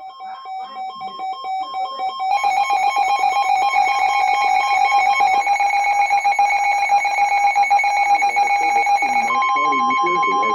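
Emergency alert attention tone, a harsh two-pitch pulsing alarm of the kind a phone's Wireless Emergency Alert sounds, rising in volume over the first two seconds and then loud. About nine seconds in, a second, steady single-pitch alert tone joins it.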